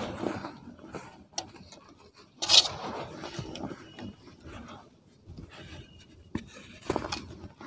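Gritty rubbing and crumbling of dry cement powder and soft cement lumps between bare hands, with powder sifting through the fingers. A sharper, louder scrape comes about two and a half seconds in, and a few more near the end.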